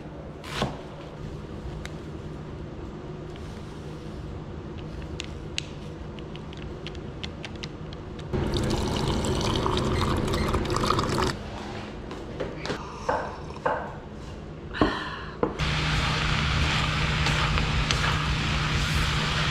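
Water running from a water dispenser's tap into a mug for about three seconds, between scattered clicks and clatter of kitchen utensils. Near the end, food in a wok frying and being stirred, with a steady low hum.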